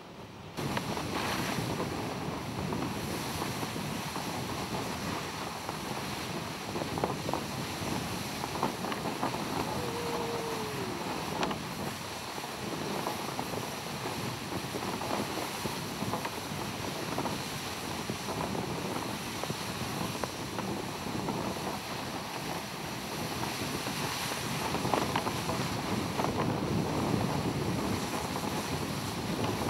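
Steady rush of dog-sled runners sliding over snow at speed, with wind buffeting the microphone; the noise comes in abruptly about half a second in. A single short falling cry is heard about ten seconds in.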